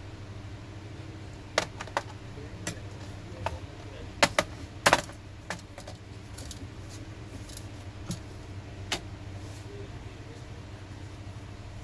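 Scattered sharp clicks and taps of small tools, screws and plastic parts being handled on a laptop during an SSD swap, with a quick cluster of the loudest about four to five seconds in, over a steady low hum.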